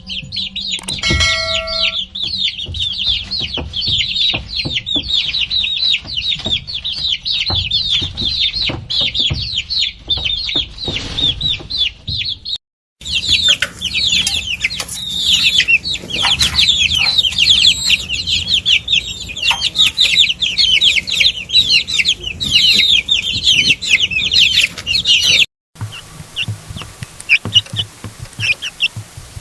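A crowd of domestic chicks peeping nonstop, many short falling cheeps overlapping. The sound cuts out briefly twice, and in the last few seconds only scattered, fainter peeps remain.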